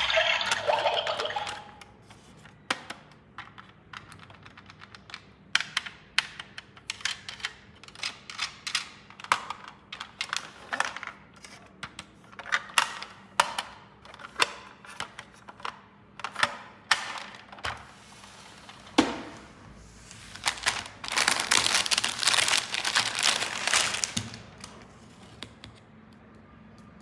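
Small hard plastic toy pieces clicking and tapping together as they are handled and set in place, many short clicks over the first two-thirds, then about three seconds of rustling, crinkling packaging.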